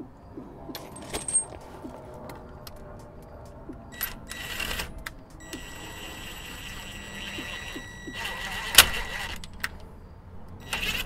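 Ryobi cordless impact wrench running in several bursts, the longest a steady run of about two and a half seconds, as it drives a nut along a long bolt to press a polyurethane pivot bushing into the axle's pivot bracket. Metal clinks and knocks come in between.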